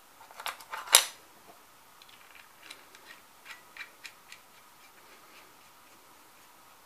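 Small metal clicks and ticks as the parts of a .22 powder-actuated nail gun are handled and fitted together, with a sharper click about a second in, then a run of faint, irregular ticks.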